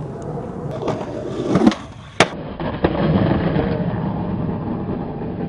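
Skateboard wheels rolling on concrete, growing louder, with a few sharp clacks of the board near the middle, then the wheels rolling on and slowly fading.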